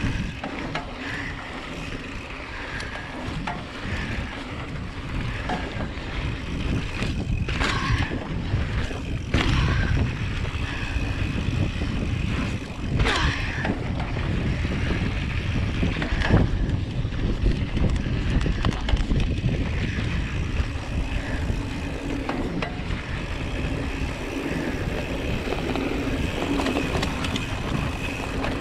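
Mountain bike ridden over a dry dirt trail, heard from a handlebar-mounted camera: wind buffeting the microphone and tyres rumbling on the dirt, with a few sharp clatters of the bike over bumps.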